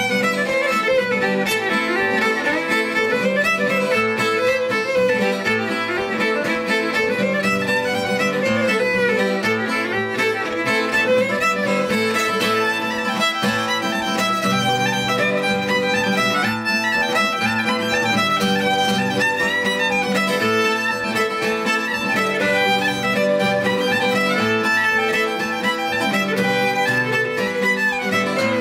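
Fiddle playing a fast Celtic reel melody over a driving rhythm on an acoustic guitar, with no pause.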